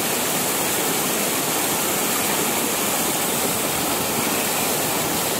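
Shallow stream rushing steadily over a small rock waterfall in white water.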